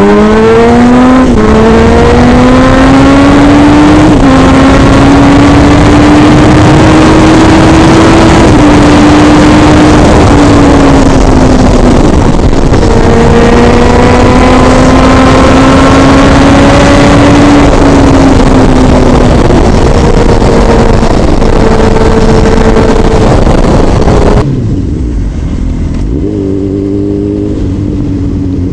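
Motorcycle engine accelerating hard through the gears, then holding at high speed under a heavy rush of wind on the microphone. About 25 seconds in, the wind noise drops away suddenly and the engine runs at lower revs, easing down as the bike slows.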